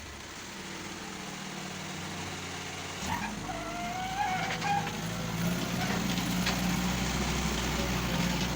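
Compact backhoe loader's diesel engine running steadily. About three seconds in, the engine note changes and grows louder, and a wavering squeal rises over it for a couple of seconds, with a few short clicks and knocks.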